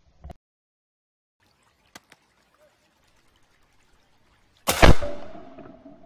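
A single shotgun shot about three-quarters of the way through, with a long decaying echo after it. A few faint clicks come before it.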